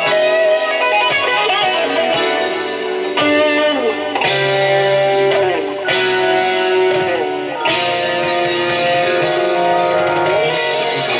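Solid-body electric guitar played live, mixing struck chords with melody lines whose notes slide and bend in pitch.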